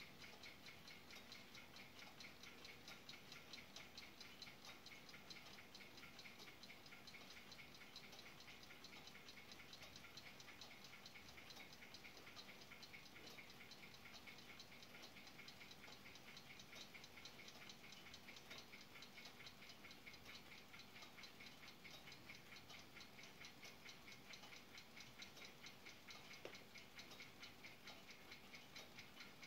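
Brass ship's clock by N.V. Observator Rotterdam ticking, faint, with a fast, even beat.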